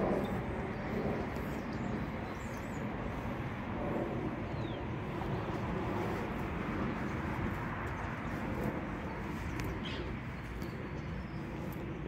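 Steady outdoor city background noise: a low hum of distant traffic, with a few faint, short high sounds.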